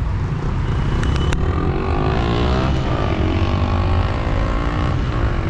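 Rush-hour street traffic: a steady low engine rumble, with one vehicle's engine rising and then falling in pitch as it pulls past in the middle.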